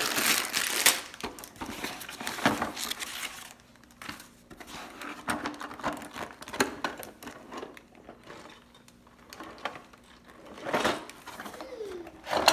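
A Lego set's packaging being opened by hand: irregular crinkling and rustling with small clicks and taps.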